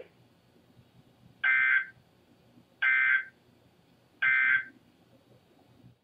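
Emergency Alert System end-of-message data tones from a NOAA Weather Radio receiver. Three short bursts of two-tone digital warble come about a second and a half apart, signalling that the alert message is over.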